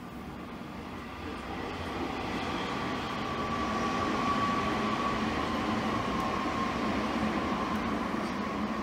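Steady mechanical rumble of a passing vehicle with a faint steady whine in it, growing louder over the first few seconds and then holding.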